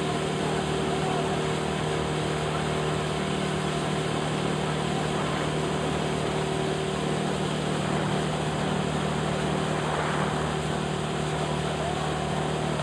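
Motor launch engine running steadily at an even pitch, with a rushing noise around it.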